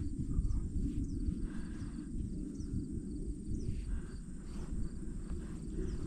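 Outdoor field ambience: wind noise on the microphone under a steady high-pitched insect drone, with short faint chirps about once a second.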